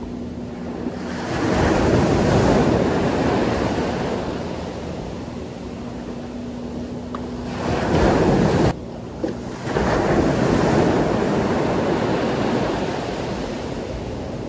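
Small waves breaking and washing up a sandy beach, swelling and ebbing in several surges, with some wind on the microphone.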